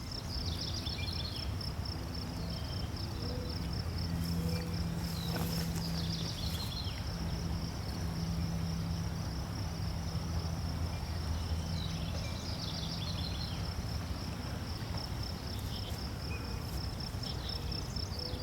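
Insects trilling in one steady high pulsing note, with a few short chirps now and then over a low steady rumble.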